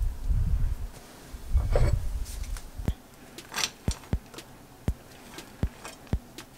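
Soft muffled handling and rustling sounds, then a series of light, separate taps as handfuls of soybean sprouts are dropped into a frying pan.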